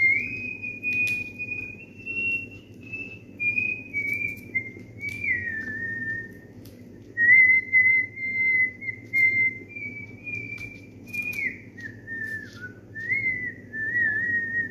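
A person whistling a slow melody, one clear note at a time, held and sliding up and down, with a short break about halfway through. Faint clicks of handling sit underneath.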